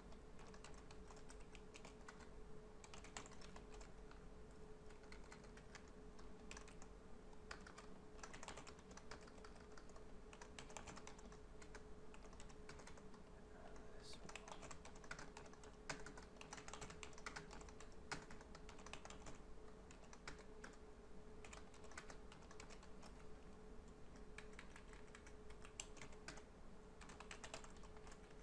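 Typing on a computer keyboard, faint irregular runs of keystroke clicks, over a steady faint hum.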